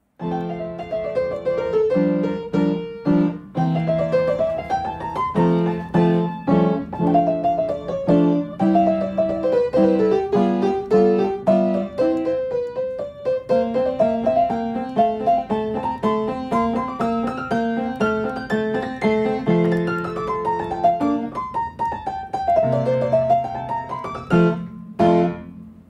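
Piano music: quick runs of notes climbing and falling over repeated low chords.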